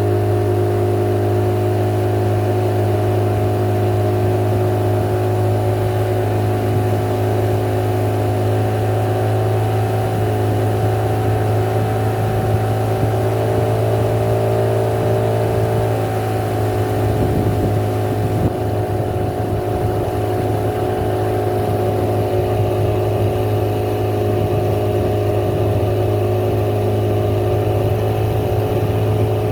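Motorboat engine running steadily under way, a constant low hum with a steady pitch that wavers briefly a little past halfway.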